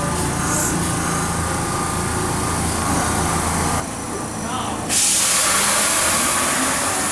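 Kintetsu 6020-series electric commuter train running with a low steady hum. About five seconds in, a sudden, loud hiss of compressed air breaks out from the train and holds steady.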